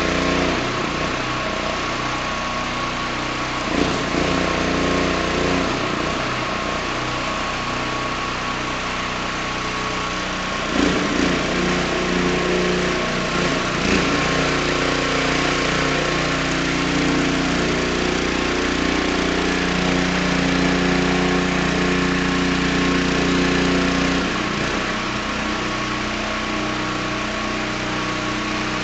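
Engine of an engine-driven CO2 welding generator running steadily, with a constant hiss over it. Its note shifts a few times.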